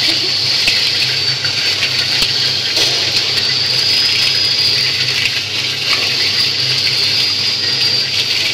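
Popcorn seasoning machine's spray nozzle hissing steadily as it sprays a fine mist of seasoning into the rotating stainless-steel drum, over the low hum of the drive.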